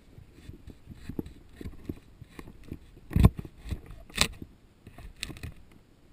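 Irregular underwater clicks and knocks as gloved hands handle a spear shaft and submerged branches around a speared fish. The two loudest knocks come about three and about four seconds in.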